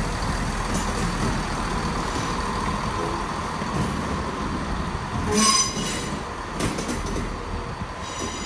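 ScotRail Class 170 Turbostar diesel multiple unit moving slowly past on a curve, with a steady rumble and a thin wheel squeal. A louder, sharp high squeal rises about five and a half seconds in, and a weaker one follows a second later.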